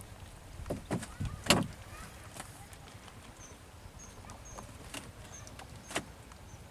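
A few sudden knocks, the loudest about one and a half seconds in, then two fainter ones near the end, over short high chirps that repeat through the second half.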